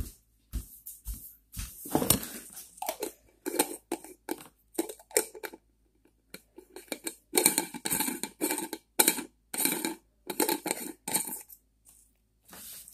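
Plastic jar with a screw-on lid handled close up, giving an irregular run of crinkly rustles and sharp clicks.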